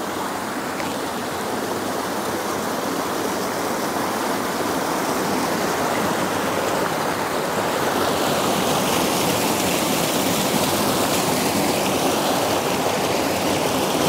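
Creek water rushing and splashing over small rock cascades and between boulders, a steady, unbroken rush that grows slowly louder.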